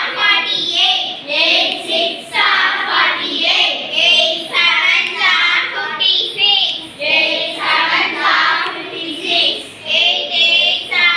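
A small group of children chanting a multiplication table together in a sing-song rhythm, in short repeated phrases.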